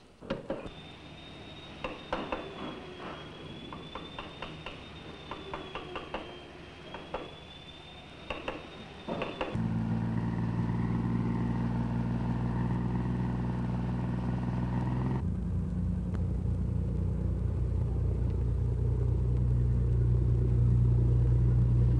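Irregular knocks and taps of hand work on a wooden boat hull, with a thin high tone wavering up and down. About nine seconds in, this gives way to a boat's engine running steadily. Near the middle it changes to a louder, deeper engine drone.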